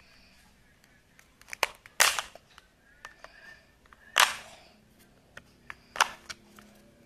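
Hard plastic parts of a take-apart toy fire truck being handled and pulled apart: a series of sharp clicks and knocks, the loudest about two seconds and four seconds in.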